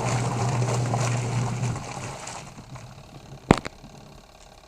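8.5 kg washing machine running a wash: a steady motor hum with water sloshing in the tub, which stops about two seconds in. A single sharp click follows about a second and a half later.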